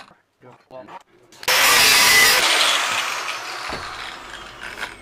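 Angle grinder cutting through steel rebar in a short loud burst about a second and a half in, then released and spinning down with a slowly falling whine.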